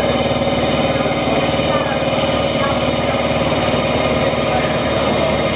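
CNC metal-spinning lathe running, its forming roller pressed against a spinning 3 mm aluminium sleeve during the final planishing pass. It makes a steady mechanical hum with several constant tones that holds even throughout.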